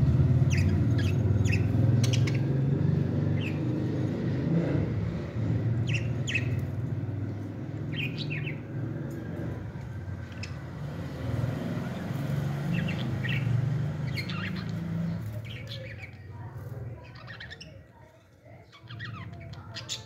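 Budgerigars chirping in short, scattered calls over a steady low hum that fades out about three quarters of the way through.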